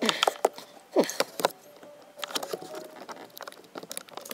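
Irregular clicks, rattles and scraping of plastic and metal as the finned blower motor resistor of a Honda CR-V is wiggled and pried out of its mounting in the heater housing, with a couple of brief squeaks.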